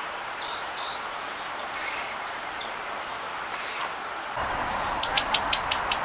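Small songbirds chirping: faint scattered high chirps, then a louder quick run of about six short high notes about a second before the end.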